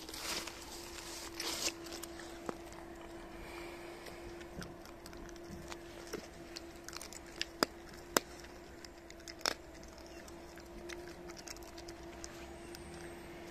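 A Shiba Inu chewing and crunching boiled chicken carcass bones: scattered sharp cracks, the loudest a few in a row in the middle. A steady faint hum runs underneath.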